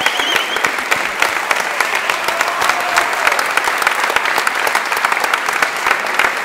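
Audience applauding steadily: a dense, even patter of many hands clapping at once.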